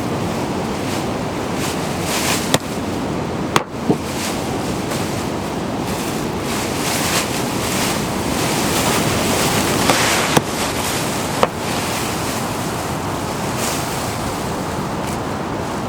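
Steady rush of running water, with a handful of sharp ticks scattered through it.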